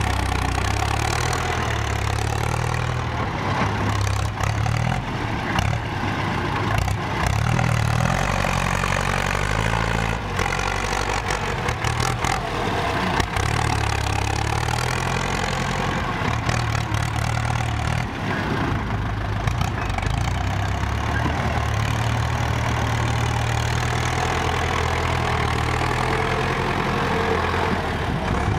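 Ford farm tractor's diesel engine running close by as it pushes dirt with its front blade, the engine note rising and falling with the load, with scattered knocks and clanks from the blade and implement.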